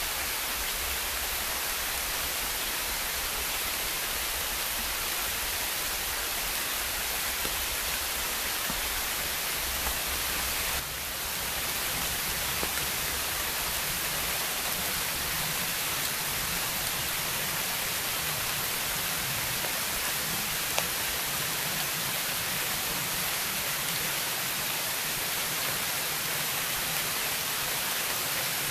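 Heavy downpour: a steady, dense hiss of rain, with a single sharp tick about twenty seconds in.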